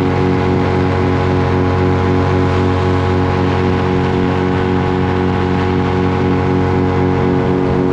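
Paramotor engine and propeller running at a steady, unchanging drone in flight.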